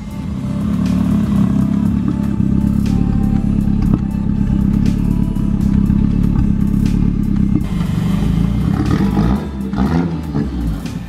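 VW T4 van's turbocharged 1.8T four-cylinder engine running loudly through a 3-inch straight-through side-exit exhaust with the cutout open. It gets much louder about half a second in. Near the end the engine note rises and falls as it revs.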